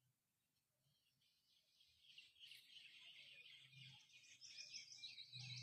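Faint bird chirping: a quick run of high, twittering notes that begins about two seconds in and grows busier toward the end.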